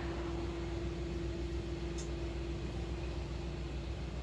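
Steady background hum and hiss from a running machine or appliance, with a deep hum and a steady mid-pitched tone that fades out near the end, and one faint tick about two seconds in.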